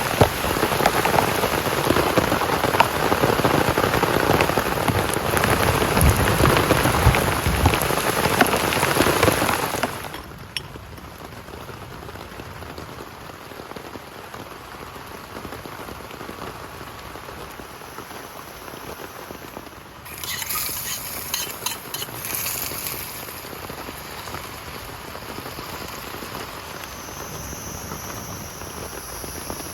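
Heavy rain falling: a loud, dense downpour for about the first ten seconds, then it drops suddenly to a softer, steady patter, with a short spell of sharper taps about twenty seconds in.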